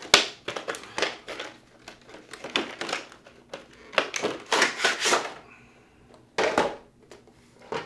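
OtterBox Defender protective case being handled and unpacked: a series of plastic clicks, knocks and rustling scrapes, with a longer rustle about halfway through.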